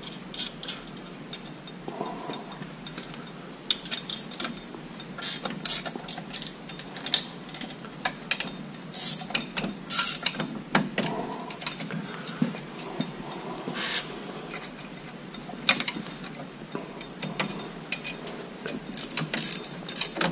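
9/16 ratchet wrench clicking in short runs, with pauses between, as nuts are snugged up on a steel three-point quick hitch, with occasional metal clinks.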